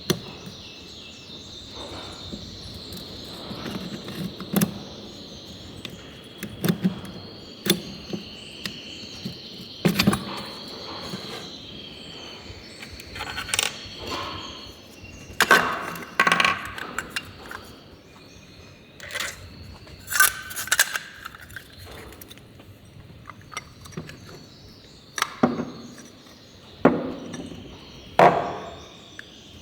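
Irregular metallic clinks and knocks of tools and metal parts being handled and set down, some louder than others, over a steady high chirping of crickets.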